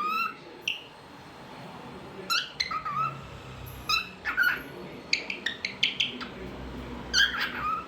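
Lutino cockatiel chirping in a string of short calls that bend in pitch, with a quick run of calls about five to six seconds in and the loudest call near the end.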